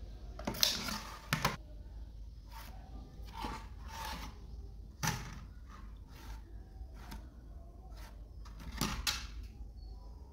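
Light knocks, clicks and scrapes of a steel ruler, marker pen and thin PVC sheet being handled and set down on a tabletop while lines are drawn. The sharpest knocks come about a second in and again near the end.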